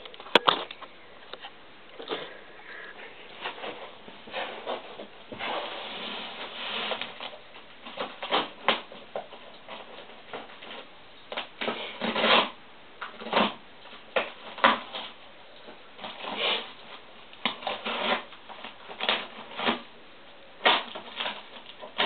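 Cardboard packaging being handled and opened: irregular bursts of rustling and scraping, with a sharp click just after the start.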